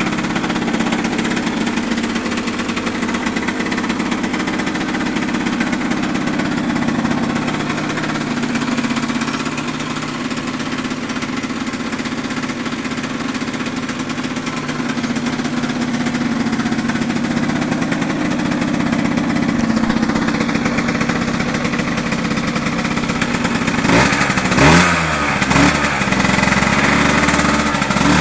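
2009 Yamaha DT50's 50cc two-stroke engine idling steadily as it warms up cold, through a derestricted exhaust pipe. Near the end it gets several quick revs of the throttle, the pitch rising and falling each time.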